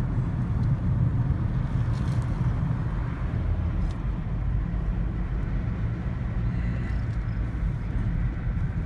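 Steady low vehicle rumble, continuous and even throughout.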